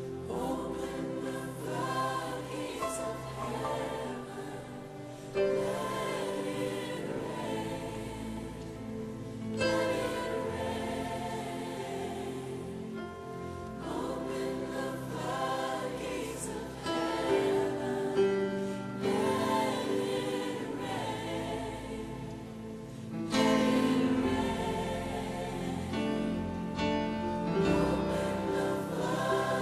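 Live gospel worship music: a choir and group of singers holding long sung phrases over piano and band accompaniment.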